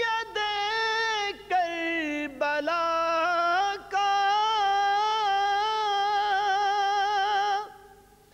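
A man singing a naat unaccompanied, holding long, wavering, ornamented notes with no words made out. The voice stops near the end.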